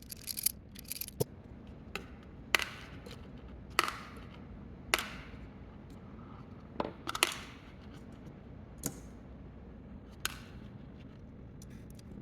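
A string of sharp clicks and taps, about one a second, from small hard parts or tools being handled during work on a plastic toy, over a steady low hum.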